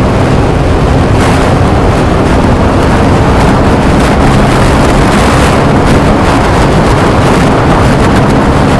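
Motorcycle engine running loud and steady through its exhaust, stopping abruptly near the end.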